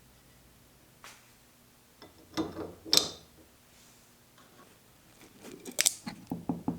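Metal clicking and rattling as parts of a York 100 cast-iron bench vise are handled and worked. There is a short clatter about two and a half seconds in, then a quicker run of clicks near the end.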